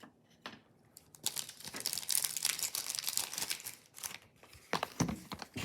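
Crinkling and tearing of a trading-card rack pack's plastic wrapper as it is handled and pulled open, followed by a few light knocks near the end.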